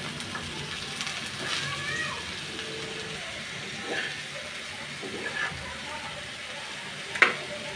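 Metal spatula scraping and knocking against a black frying pan as diced pumpkin is stirred, over a faint frying hiss. A few sharp knocks, the loudest near the end.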